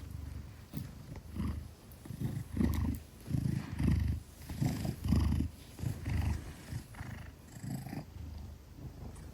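Maine Coon cat purring close up: a deep rumble that swells and fades with each breath, loudest in the middle.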